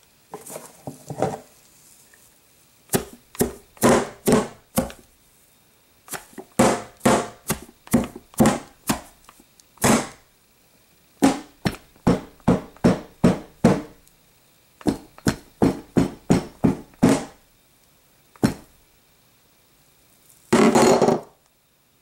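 A beating done as comedy sound effects: rapid thudding blows in bursts of several strikes, about three a second, with short pauses between bursts. The blows stand for limbs being broken. A longer, louder noise comes near the end.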